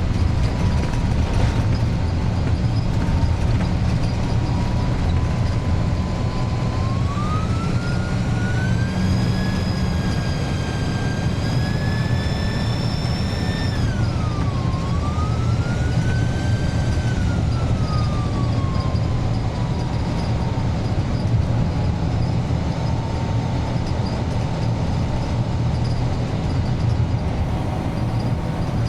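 Iveco 170S28 bus's turbodiesel engine running under way: a steady low drone with a shrill turbocharger whistle over it. The whistle climbs in pitch a few seconds in, dips sharply about halfway through, rises again and then settles back to its lower pitch.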